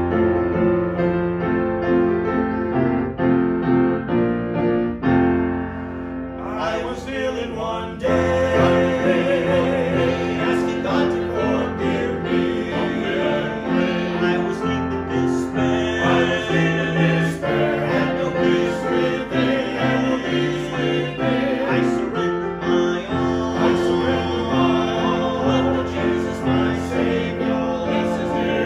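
Piano playing, joined about seven seconds in by a singing voice with vibrato that carries on over the accompaniment.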